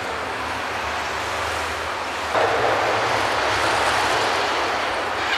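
Street traffic noise, then a large vehicle passing close by from about two seconds in, its noise jumping up sharply and staying loud.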